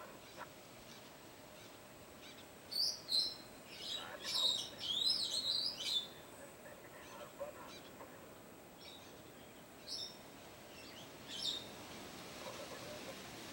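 Wild birds calling: a run of sharp, high chirps and whistled glides starting about three seconds in and lasting about three seconds, then two short calls later on.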